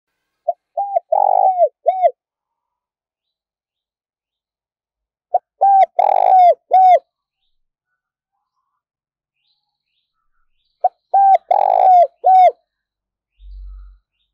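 Spotted dove cooing at close range. It gives three phrases about five seconds apart, each a few short coos around one longer central coo.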